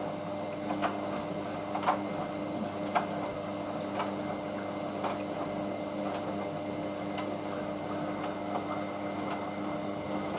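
Hoover washing machine in its final rinse: a steady electrical hum with water running and sloshing inside, and faint splashes or clicks about once a second.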